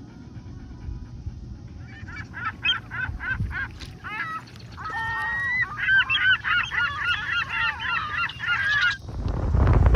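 Geese honking: scattered single calls from about two seconds in, becoming a dense chorus of overlapping honks from about five seconds, over a low rumble. A louder low noise comes in near the end.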